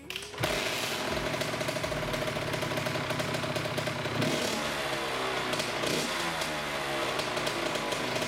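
2001 Kawasaki KX85's two-stroke engine running, coming in abruptly about half a second in. It dips briefly near four seconds, then is revved up and down.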